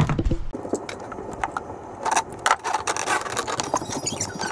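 Irregular clicks and rustling as a corrugated plastic dishwasher drain hose is handled by hand, with a low rumble in the first half second.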